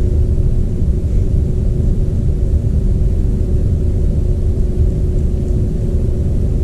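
Steady low rumble with a constant faint hum, unchanging throughout: continuous background machinery or air-handling noise in an empty room.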